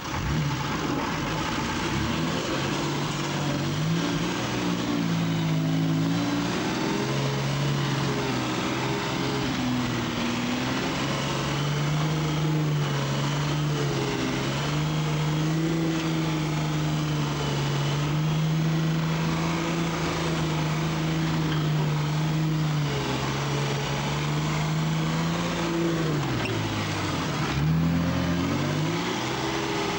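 Mercedes-Benz Unimog's diesel engine pulling the truck through deep mud, heard from inside the cab. The revs climb about two seconds in and hold fairly steady. Near the end they drop sharply, then rise again.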